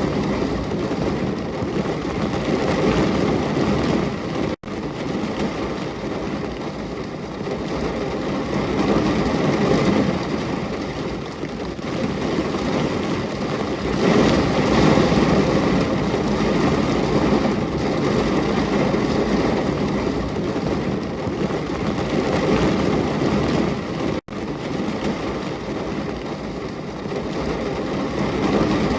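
Steady heavy rainfall, a dense even hiss, cutting out for an instant twice (about four and a half seconds in and near the end).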